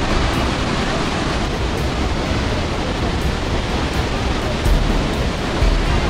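Athirappilly Falls, a large waterfall on the Chalakudy River, crashing into its plunge pool close by: a steady, dense rush of falling water, with a couple of brief low rumbles near the end.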